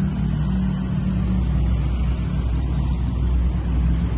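Steady low rumble of a motor vehicle's engine running on the street, with a low engine note that is stronger in the first second or so and then settles.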